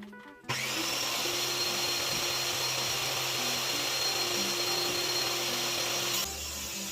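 Electric power tool running at steady speed on woodwork: a loud, even hiss with a thin high whine that starts abruptly about half a second in and cuts off about six seconds in.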